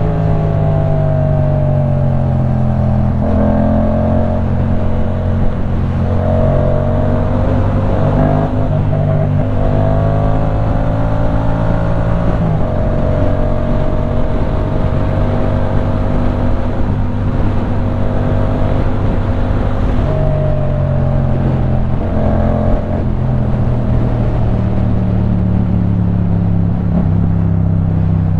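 Yamaha MT-07's 689 cc parallel-twin engine running through a LeoVince One Evo full-system exhaust while riding. The engine note holds fairly steady, dipping and rising a few times, over a constant rush of wind and road noise.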